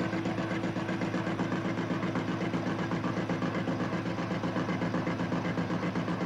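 Metal lathe running with a heavy-duty tool roughing across the faces of steel soft jaws in a three-jaw chuck: a steady machine hum with a fast, even pulsing, the tool striking the separate jaws in turn in an interrupted cut.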